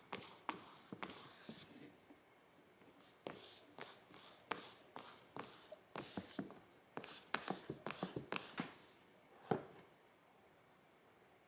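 A cat shifting about inside a cardboard box with a clear plastic window, pushing a paw against the plastic. It makes irregular crackles, ticks and light scrapes that stop with a sharper click about two seconds before the end.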